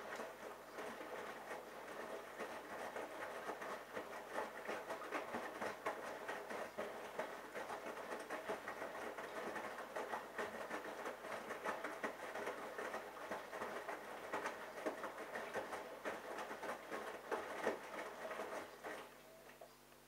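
Bosch Logixx WAS32461 washing machine drum turning through a wash tumble, the wet laundry falling and splashing inside it in a dense, irregular patter. The drum stops near the end.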